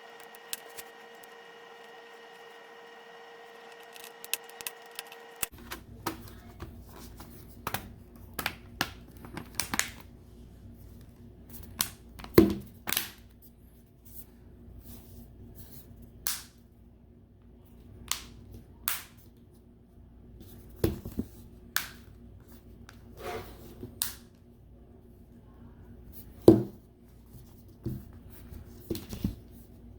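Scattered small clicks and taps of hand work on a tablet's plastic casing and parts during reassembly, a dozen or so sharp ticks with pauses between them. A faint steady hum runs for the first five seconds and stops abruptly.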